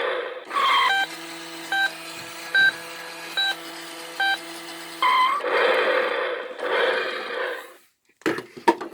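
A toy Cadillac Escalade EXT's sound unit playing electronic clips through its small speaker: a steady buzzy tone with short beeps about every 0.8 s, set between loud voice-like clips, followed by a few sharp clicks near the end.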